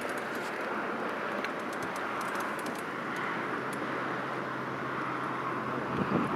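A small electric motor on a fishing boat running steadily: a low hum under an even hiss, with a few faint ticks.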